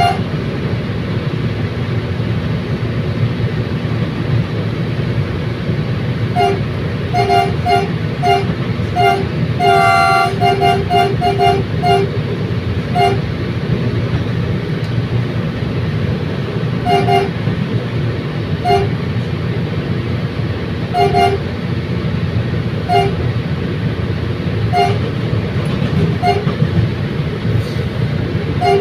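Commuter train running with a steady rumble while a horn gives short toots over and over: a quick run of many toots several seconds in, the longest about ten seconds in, then single short toots every couple of seconds.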